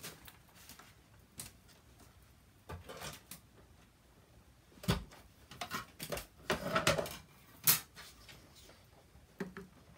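Handling noises from a manual die-cutting machine and its clear acrylic cutting plates: scattered knocks and clacks as the machine is set down and the plates and paper are positioned, with the loudest, sharpest clack late on.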